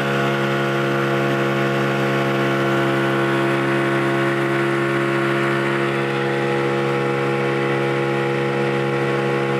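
Outboard motor of an inflatable boat running at a steady speed, a constant pitched hum over a rush of wind and water.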